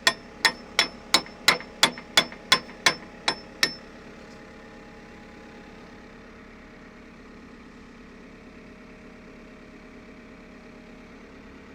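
Hammer blows on a steel pin, metal on metal with a short ringing ping, about three strikes a second, driving the pin into a JCB backhoe's hydraulic cylinder mount. The blows stop about four seconds in, leaving the backhoe's diesel engine idling steadily.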